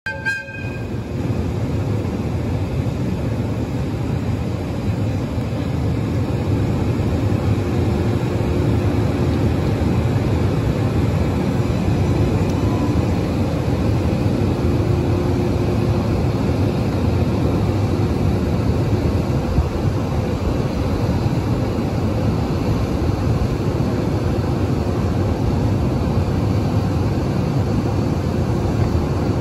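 EH200 electric locomotive moving slowly at low speed, its blowers and traction equipment giving a steady low hum with a faint steady tone through it. The sound grows a little louder over the first several seconds.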